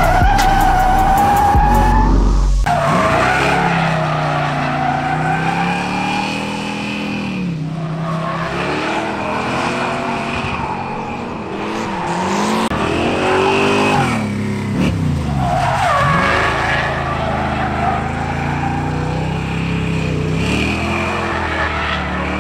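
Ford 351 Windsor small-block V8 in a New Edge Mustang drifting: the engine revs up and down again and again while the rear tires squeal.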